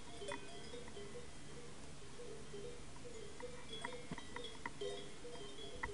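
Faint, irregular clanking of metal bells, ringing at several pitches that come and go, with a few light ticks.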